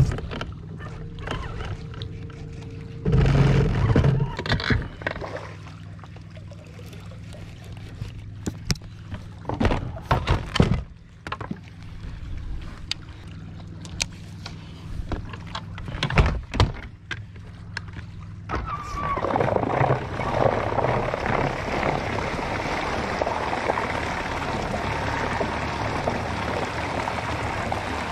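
Electric trolling motor humming steadily, with a few knocks against the boat. About two-thirds of the way through, a louder rush of churning water starts and keeps going.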